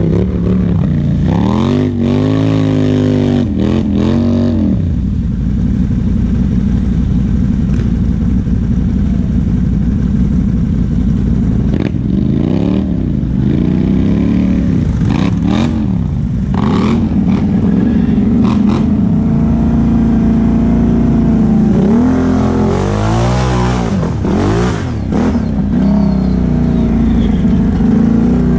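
ATV engines: one idles steadily close by while another ATV revs up and down as it churns through a mud hole, in three bouts of repeated revving near the start, in the middle and near the end.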